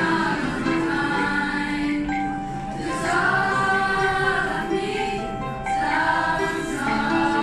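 A youth choir, mostly girls' voices, singing a song with long held notes.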